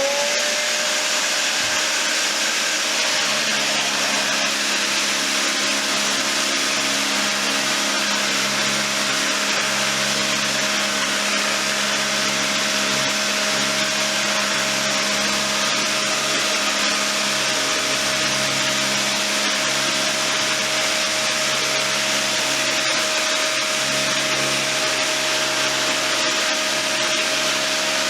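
A 5 hp Shop-Vac and a 6-inch RIDGID electric sander with 60-grit paper running together, the vacuum's motor whine rising as it comes up to speed at the start and then holding steady. The sander works over fairing compound, its low hum shifting as it moves.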